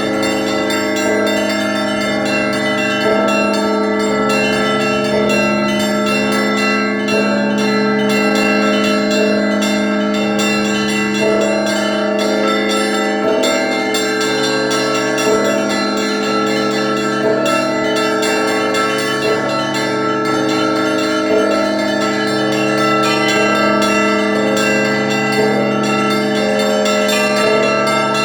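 Russian Orthodox church bells rung by a single bell ringer: a deep bell's tone hums on while middle bells strike in a pattern repeating about every two seconds and small bells chime rapidly above.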